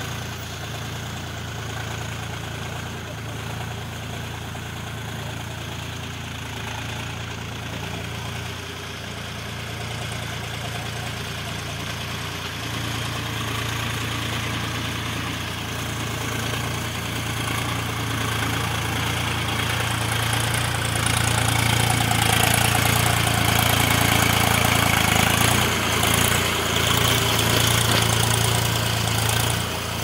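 Swaraj 735 FE tractor's three-cylinder diesel engine running steadily under load as it drags its implement through a flooded paddy field. It grows louder past the middle as the tractor comes closer, then stays loud.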